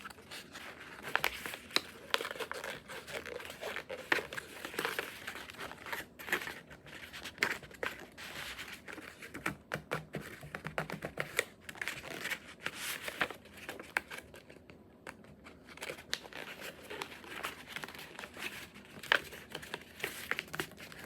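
A sheet of printer paper being handled and folded: irregular crinkling, rustling and sharp crackles as the paper is creased and flattened.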